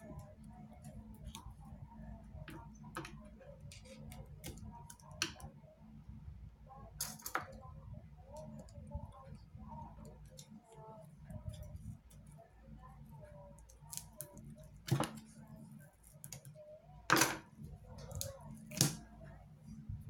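Scattered small clicks and taps of hands prying and handling parts inside an opened iPad 2 as the loudspeaker assembly is worked loose. The loudest clicks come in the second half. A steady low hum runs underneath.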